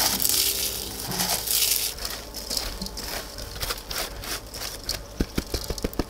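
Crisp fried pieces rustling in a woven bamboo basket and rattling as they are tipped into a metal wok, many small clicks and rattles, with a few dull knocks near the end.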